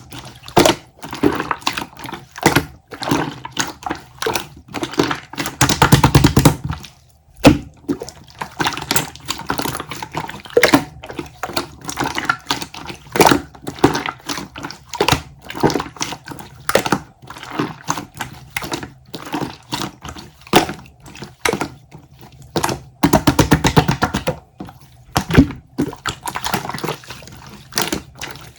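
Irregular knocks and clatter with some water sounds, with two denser, louder stretches, about six seconds in and again near twenty-three seconds.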